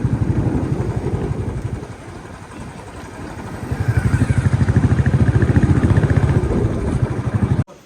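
Motorcycle engine running with a fast, even pulsing beat. It eases off about two seconds in, picks up again a second or so later, and cuts off suddenly near the end.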